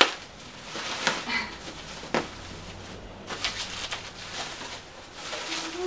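Bubble wrap and plastic packaging rustling and crinkling as it is handled and pulled open, with a few sharp clicks about a second apart.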